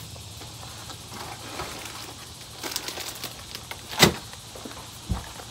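Items being handled on a table: rustling and light clicks, then a single sharp knock about four seconds in and a short dull thump near the end.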